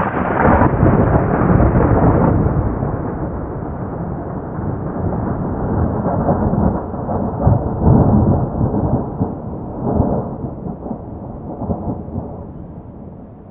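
Thunder: a loud clap breaks right at the start, then rolls on in a long rumble. The rumble swells again about halfway through and twice more later on, then slowly fades.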